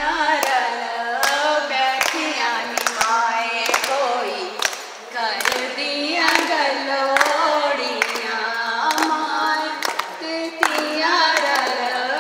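Women singing a song together, one of them into a microphone, with hands clapping along in a steady beat.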